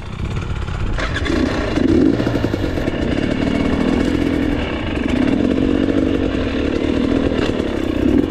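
Dirt bike engine running at low revs, its pitch rising and falling as it is throttled on and off, with a sharp clatter about a second in.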